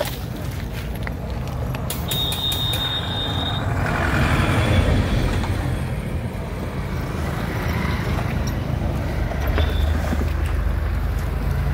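An engine running steadily with a low rumble. About two seconds in, a high whistle sounds briefly, for about a second and a half.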